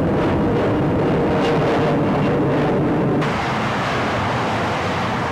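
Jet aircraft flying overhead, a loud steady jet-engine sound with a held tone; about three seconds in it cuts suddenly to the steady hiss of dense freeway traffic.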